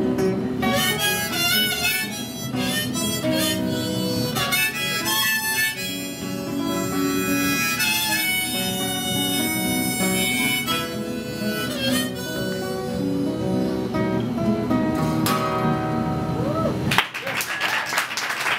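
Harmonica playing a bending melody over a strummed acoustic guitar, the song's instrumental ending. Near the end the music stops and applause starts.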